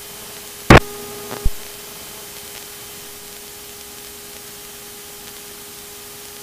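Steady static hiss on the cockpit radio audio feed, with a faint steady hum underneath. A short loud burst comes about three quarters of a second in, and a smaller click follows about half a second later.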